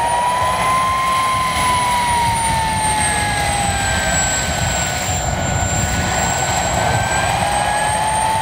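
Small model gas-turbine turboprop engine of a 1:4-scale DHC-2 Beaver running on the ground: a steady turbine whine that drifts slowly up and down in pitch, over a rushing hiss.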